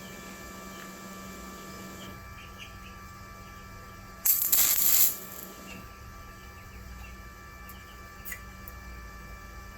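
A brief crackle of a stick-welding arc as a 7018 electrode is struck, lasting under a second before it cuts out, the rod sticking to the plate. A steady electrical hum runs underneath, with a couple of faint clicks near the end.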